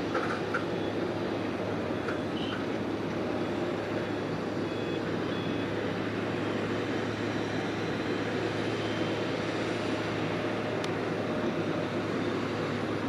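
Heavy earthmoving machinery running steadily at a constant level, with a few short, faint beeps of a reversing alarm early on and a few seconds in.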